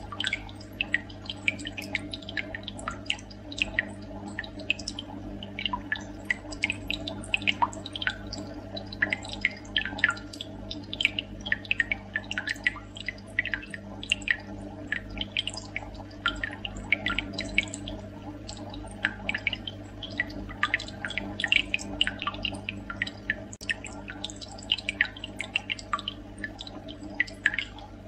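Water dripping and trickling in many quick, irregular drops, over a steady low hum.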